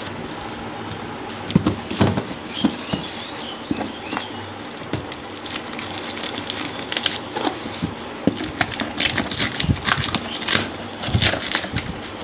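Clear plastic wrap and packing tape being pulled and peeled off a cardboard box, giving irregular crackling and rustling over a steady background hiss.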